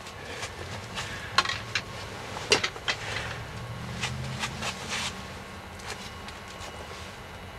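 Scattered light clicks and knocks of gear being handled at irregular moments, with a faint low hum for a couple of seconds in the middle.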